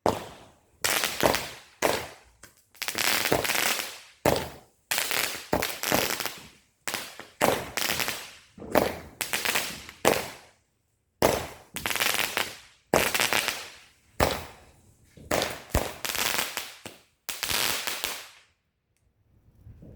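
Fireworks going off in a long rapid barrage. Sharp bangs come one or two a second, each trailing off quickly, and stop about a second before the end.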